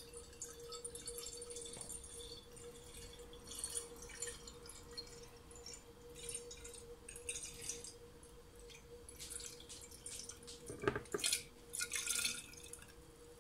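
Cornelian cherry liqueur trickling and dripping through a funnel into a glass bottle, faint and irregular, with a few sharper knocks near the end.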